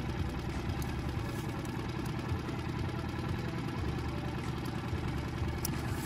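Small outboard motor on an inflatable boat idling steadily, a low even rumble.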